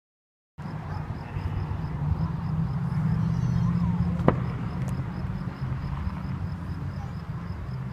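Sound cuts in just over half a second in as a steady low rumble, with one sharp crack about four seconds in, typical of a firework going off.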